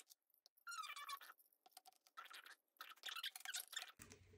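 Faint, irregular scratching and squeaking of metal as a coiled-wire soldering iron holder is screwed into its stand base.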